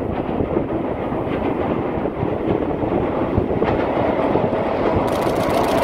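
ED76 electric locomotive and its container freight train rumbling on the rails as they approach. About five seconds in the noise grows louder and harsher as the train rolls onto the steel girder bridge.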